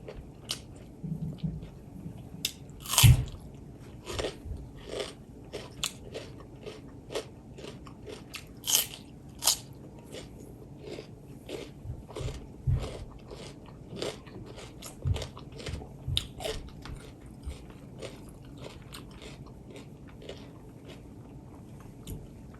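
A person eating: irregular bites, chewing and wet mouth clicks, with one louder crunch about three seconds in.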